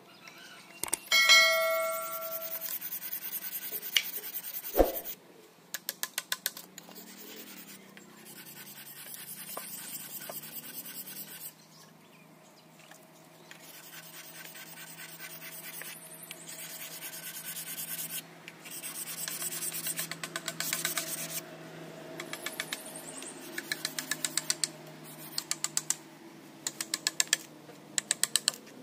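Hand woodworking on a wooden board: scraping, rasping strokes of a hand tool along the wood, a ringing metallic clink about a second in, a couple of sharp knocks, and several runs of quick regular taps.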